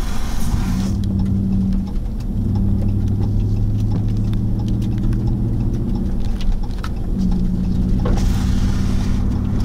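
Car engine running with a steady low hum that shifts slightly in pitch. A brief rushing hiss comes near the end.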